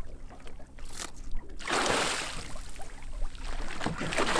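Water splashing and sloshing as a hooked lemon shark swims at the surface against the boat's side. Quieter for the first second and a half, then a steady rush of water with wind on the microphone.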